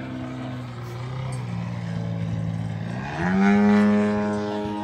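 Model aeroplane engine running in flight, its note low and steady at first, then revving up sharply about three seconds in and holding the higher pitch at its loudest.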